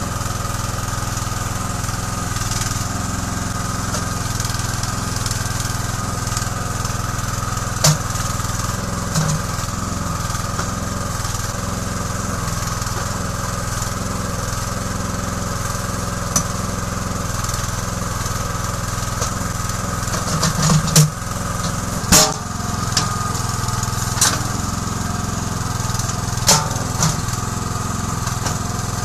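Small engine running steadily to drive a homemade backhoe's hydraulics, with a steady whine over it. Sharp knocks as the bucket digs come once about a third of the way in and several times in the last third, the loudest about three-quarters through.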